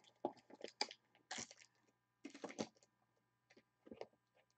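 Stacked trading-card packs and a small cardboard box handled and set down on a table: a scattering of faint taps and rustles.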